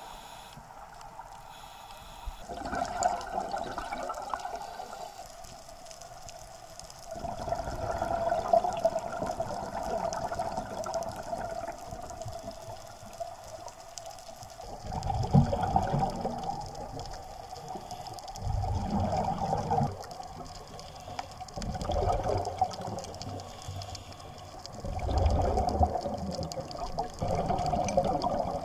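Scuba diver's regulator exhalations, heard underwater through an action camera's housing: about six bubbling bursts of one to three seconds each, coming every few seconds in a breathing rhythm.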